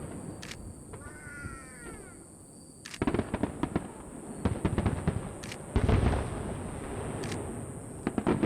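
Aerial fireworks bursting: booms and rapid crackling reports in quick volleys, with a brief lull about a second in that holds a short wavering whistle, then dense rapid-fire bangs from about three seconds and a heavy boom near six seconds.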